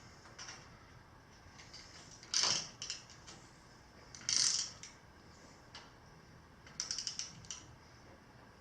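Scattered metal-on-metal clicks and scrapes from hand work on a woodworking machine as a part is pressed into alignment and a bolt is tightened. There is a sharp knock about two and a half seconds in, a short scraping swish near the middle, and a quick run of small clicks about seven seconds in.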